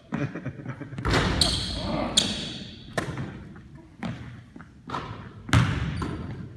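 Basketballs bouncing and thudding on a hardwood gym floor, a series of sharp hits about once a second, each echoing briefly in the gym.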